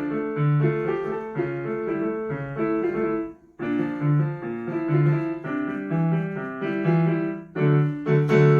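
Piano playing a short piece in a steady rhythm. It breaks off briefly about three and a half seconds in, then ends on a chord struck near the end and left ringing.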